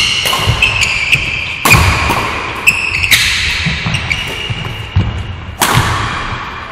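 Badminton rally: three sharp racket strikes on the shuttlecock, one every one and a half to two and a half seconds, each echoing in the hall. Between them, short high squeaks of court shoes on the sports floor and the low thuds of footwork.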